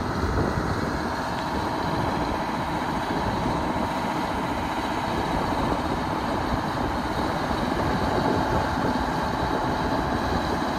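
A heavy diesel truck engine idling steadily, with wind buffeting the microphone.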